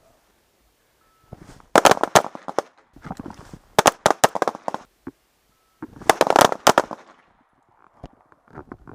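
Pistol gunfire: quick strings of several shots each, in three loud bursts about two seconds apart, with a quieter string near the end.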